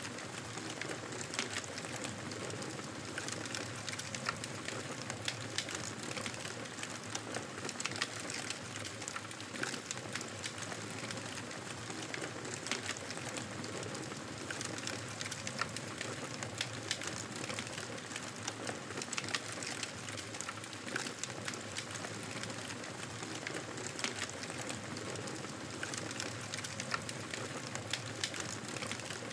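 Campfire burning, with a steady rush of flame and frequent small crackles and pops scattered throughout.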